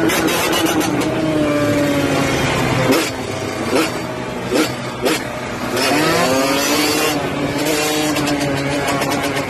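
Dirt bike engines running at high revs in traffic. The engine note sags gradually, breaks into a few short, sharp bursts around three to five seconds in, then climbs again as the throttle opens and holds steady.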